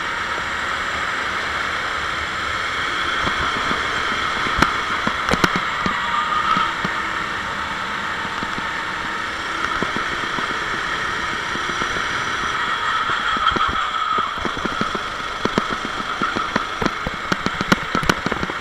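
Sodi SR4 rental kart's four-stroke engine heard onboard at racing speed, its pitch rising and falling gently through the corners. A few sharp knocks cut in, with a cluster of them near the end as the kart rides a kerb.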